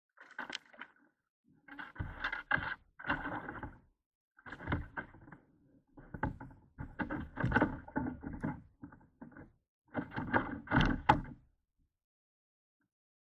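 Knocking and rattling in irregular bursts as a smallmouth bass is reeled in and landed in a plastic kayak, with sharp clicks among them.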